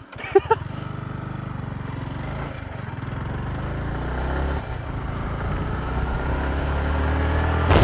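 Motorcycle engine running, its pitch and loudness slowly rising as it picks up speed, after a couple of clicks right at the start.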